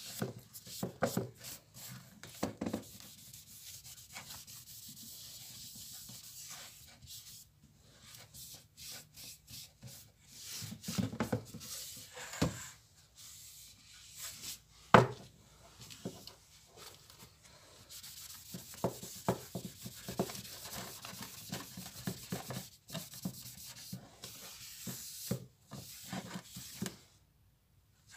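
Rag rubbing over a varnished walnut-veneer dashboard panel, wiping thinned Danish oil on and off, a continuous soft scratchy rub. Scattered light taps and knocks run through it, with one sharper knock about halfway through.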